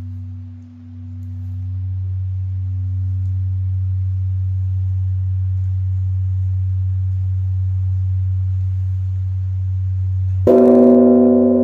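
Large Korean Buddhist temple bronze bell humming long and low after a stroke, dipping once and swelling back. About ten and a half seconds in it is struck again and rings out with many overtones over the deep hum.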